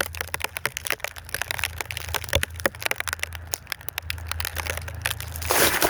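Dense, irregular crackling and ticking of snow and ice close against the phone's microphone, over a steady low rumble, with a short rush of noise near the end.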